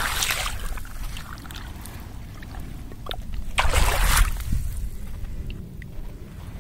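Water splashing and sloshing around a mirror carp held in a wet plastic retention sling at the water's edge: two short splashes, one at the start and a louder one about four seconds in, with light drips and clicks between, over a steady low rumble.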